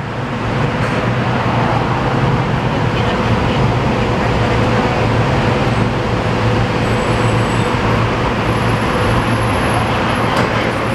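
Gillig 40-foot CNG transit bus with a Cummins Westport ISL G natural-gas engine running as it drives slowly up to the stop, with a steady low hum under constant traffic noise.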